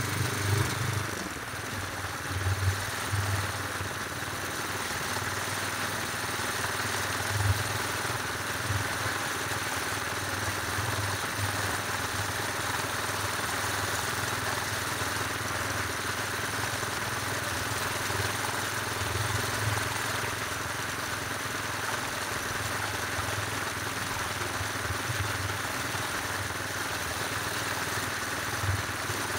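Motorcycle running steadily while riding, with a constant rushing noise and irregular low buffeting rumbles throughout.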